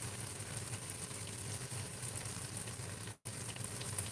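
Chicken wings sizzling in a pan, a steady crackling fry with a low hum underneath; the audio drops out for a moment about three seconds in.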